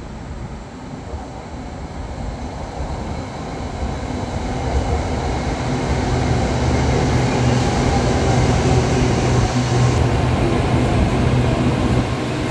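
SRT Red Line electric commuter train, a Hitachi electric multiple unit, running in alongside a station platform. The rumble of its wheels and traction motors grows louder over the first several seconds as it comes alongside, with a steady low hum underneath.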